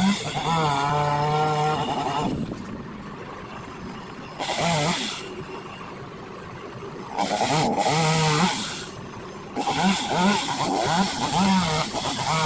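Two-stroke chainsaw revving up into a cut in about four bursts, dropping back toward idle between them, its engine pitch wavering under load.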